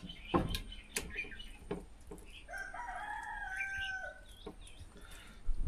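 A rooster crows once, a single held call of about a second and a half in the middle, falling away at the end. A few light clinks and knocks, like utensils on dishes, come before and after it.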